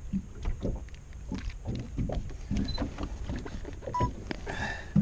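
Irregular knocks, bumps and rustling of hands handling a small digital camera and setting it down on a boat, with a short electronic beep about four seconds in.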